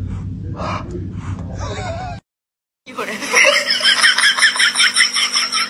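A man laughs softly a few times, with a kitten's thin mew near the end. After a short silent cut comes a fast, even run of hissing squirts, about four or five a second, over a steady hum: milk being squirted from a cow's teats by hand.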